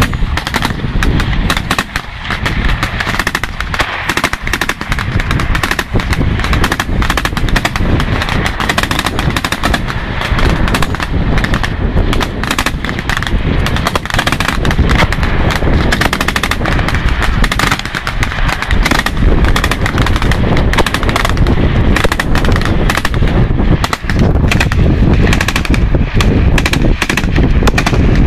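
Rapid, overlapping automatic gunfire from several rifles and machine guns firing at once, shots running together almost without a break.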